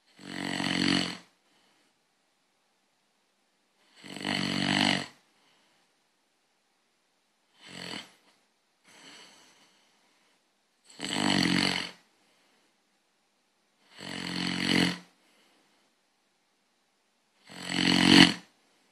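Snoring in a slow, even rhythm: a snore about every three and a half seconds, each lasting about a second, with one weaker, broken snore midway.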